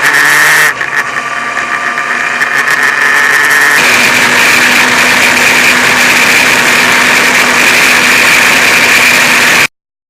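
Motorcycle engine under way, picked up by an action camera's external microphone. The engine note falls at the start, then about four seconds in the sound becomes a louder, steady drone with a rushing noise. It cuts off abruptly near the end.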